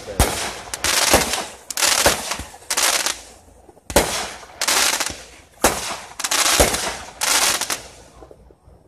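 Aerial fireworks going off in quick succession: about ten sharp bangs over eight seconds, roughly one a second, each followed by a fading hiss. They stop about eight seconds in.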